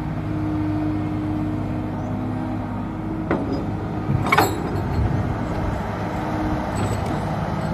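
Diesel engine of a Komatsu PC200-6 hydraulic excavator running steadily as it swings a loaded bucket over a dump truck and dumps sand. Two brief sharp clanks come about three and four seconds in, the second the louder.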